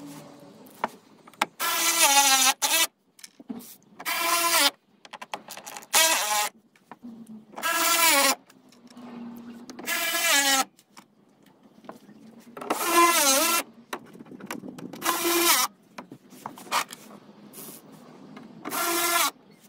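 Power drill-driver running in short bursts, about eight in all, its motor whine sliding up and down in pitch as it drives the screws of a plastic engine undertray home.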